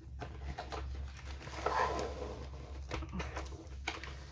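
Packaging rustling and crinkling while a diamond painting kit is unpacked, loudest about two seconds in, with a few light clicks over a steady low hum.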